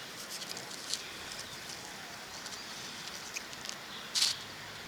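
Faint scraping and rustling of soil being worked by hand, with one short, louder scratchy rustle about four seconds in.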